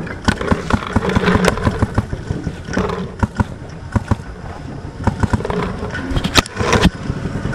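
Paintball gunfire: irregular sharp pops and knocks of markers firing and paintballs striking wooden cable-spool bunkers, with the two loudest close together about six and a half seconds in.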